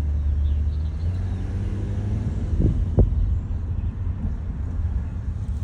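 1991 Toyota Soarer on the move, heard from inside the cabin: steady low road and engine rumble, with a single sharp knock about three seconds in.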